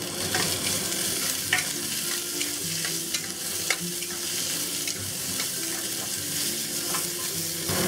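Sugar snap peas and garlic sizzling in hot oil in a wok as they are stir-fried, with scattered clicks of a metal spatula against the pan.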